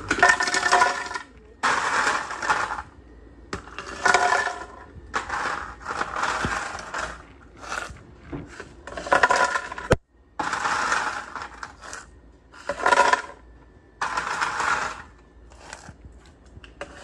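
Ice cubes clattering as they are scooped from a plastic tub and tipped into an empty plastic blender pitcher, a burst of clatter every second or two.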